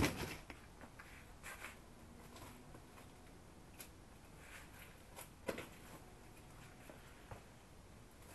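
Cardboard boxes being handled: a sharp knock at the start, then scattered faint taps and rustles.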